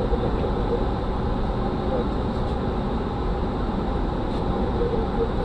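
Steady flight-deck noise of an Airbus A300-600 in flight: a constant rush of airflow and engine drone with a faint steady hum running through it.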